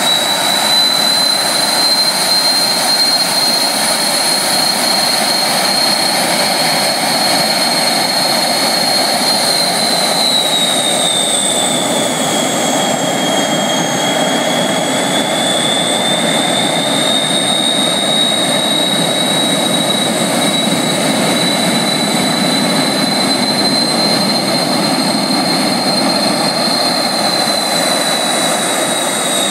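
Fouga Magister jet trainer's twin Turbomeca Marboré turbojets running at low power as the aircraft taxis: a loud, high whine over a steady rushing noise. The whine sags in pitch about ten seconds in and climbs back a few seconds later.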